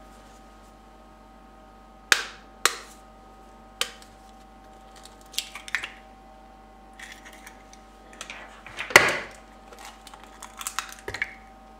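Raw eggs being cracked on the rim of a plastic mixing bowl: a few sharp taps on the shell, then scattered cracks and clicks as the shells are broken open, the loudest about nine seconds in. A faint steady hum underneath.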